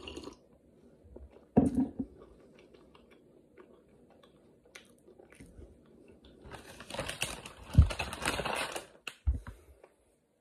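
A sip from a mug, then the mug set down on the table with a thud. A few seconds later comes a burst of crinkling from a biscuit wrapper being rummaged, with a couple of knocks on the table.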